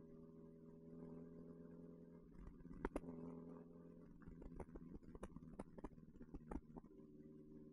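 Faint, steady hum of a 1969 Alfa Romeo Spider's four-cylinder engine and exhaust at an even cruising speed, with scattered clicks and ticks.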